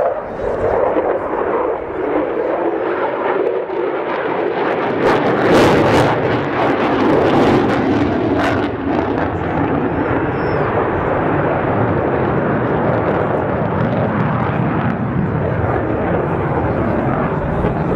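Steady jet engine noise from an F-16 and a MiG-29 manoeuvring in the sky. It swells a little about six seconds in.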